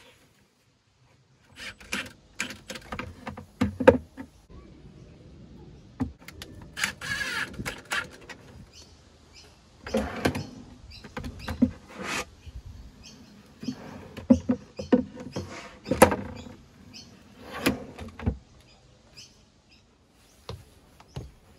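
Irregular knocks, clicks and rattles of hands-on fitting work, with a short burst of higher noise about seven seconds in.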